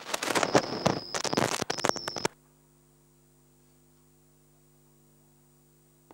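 Loud crackling static with a steady high whine, cut off abruptly about two seconds in. What is left is a faint, steady electrical hum on the audio line.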